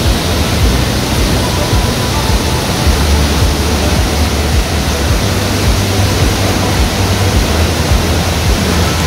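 The Río Celeste waterfall, its water falling and rushing steadily into the pool below as a loud, even noise.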